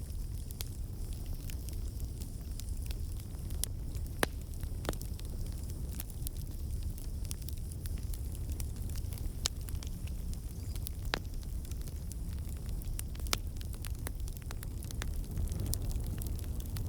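Campfire burning: a steady low rush of flames with scattered sharp crackles and pops of burning wood.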